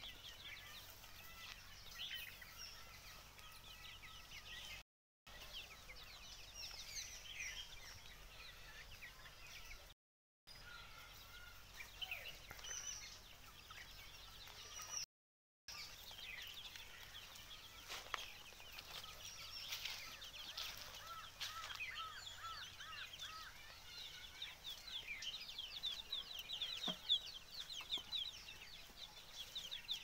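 A flock of young free-range Sonali chickens, about 45 days old, peeping and clucking as they forage. Short high chirps come thick and fast, densest in the second half. The sound cuts out briefly three times.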